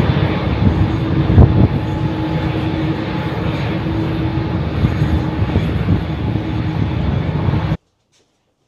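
Jet airliner engines running at an airport apron: a loud, steady roar with a constant hum through it. A single thump about a second and a half in, and the sound cuts off suddenly near the end.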